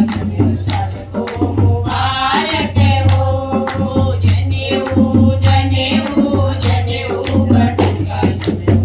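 A Kumauni badhai geet, a celebratory folk song for a janeu (sacred thread) ceremony, sung with a steady beat of drum and jingling percussion.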